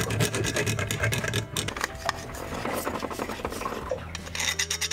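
Small metal file rasping back and forth in rapid short strokes, enlarging a hole that is slightly too small for a bolt. The strokes soften in the middle and grow louder again near the end, over a low steady hum.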